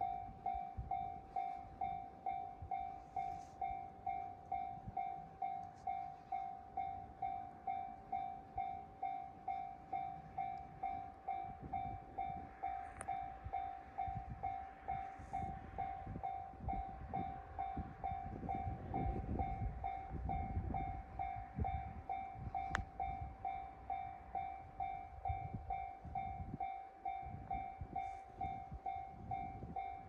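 A Japanese railway level-crossing alarm, an electronic bell ringing an even, repeated ding about twice a second. A train's low rumble swells and fades in the middle.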